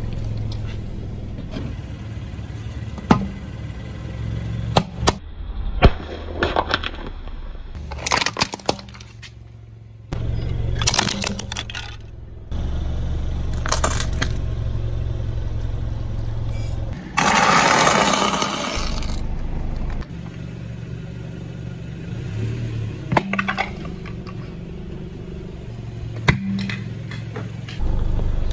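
A car tyre rolling over and crushing small packaged items such as drink cartons, giving a string of sharp cracks and pops. A low engine hum sits under some of the clips, and a rush of noise about two seconds long, near the middle, is the loudest sound.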